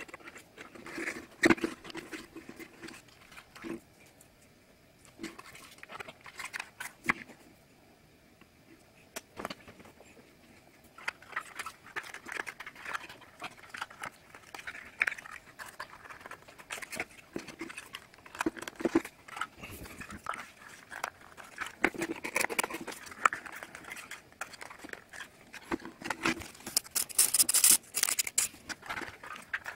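Stiff printed-card puzzle pieces being handled and slotted together: scattered light clicks, taps and rustles, with a louder scraping rub near the end as a piece is pushed into its slot.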